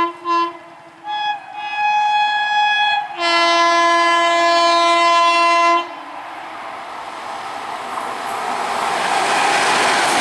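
Indian electric train's horn sounding in several blasts: a long blast that cuts off just after the start, a short toot, a higher note for about two seconds, then a long, loud blast of about two and a half seconds. After the horn stops, the rumble and clatter of the train's wheels on the rails grows louder toward the end.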